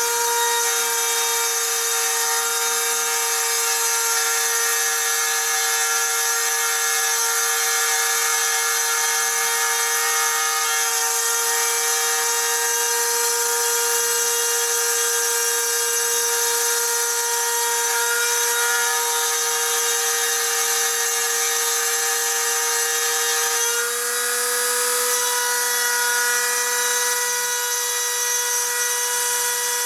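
A handheld rotary tool, the spindle of a 3D-printed CNC mill, whines steadily while its 2 mm two-flute flat end mill cuts through black laminated chipboard, with the rasp of the cut over the whine. The whine steps up slightly about 24 seconds in.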